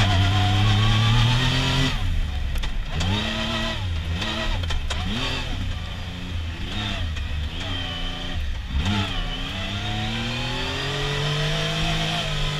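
Yamaha YXZ1000R's three-cylinder engine heard from inside the cab, revving hard under acceleration. About two seconds in the revs drop, then rise and fall over and over for several seconds of on-and-off throttle. They climb steadily again over the last few seconds.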